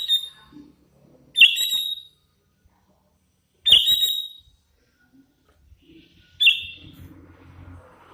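A young hand-reared sooty-headed bulbul (kutilang) calling: four loud, sharp, short calls a second or two apart.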